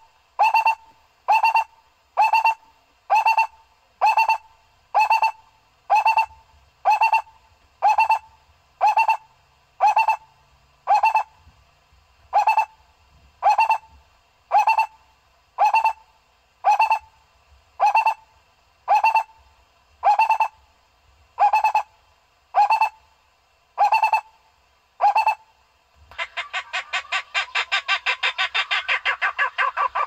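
Barbet calls: one note repeated evenly, about one and a half times a second. About 26 seconds in, it gives way to a fast, dense trill.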